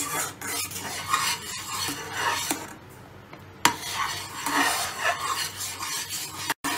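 Spatula stirring and scraping thick almond halwa around a nonstick saucepan in repeated strokes, kept moving so the mixture doesn't catch on the bottom. A sharp knock of the spatula on the pot comes about three and a half seconds in.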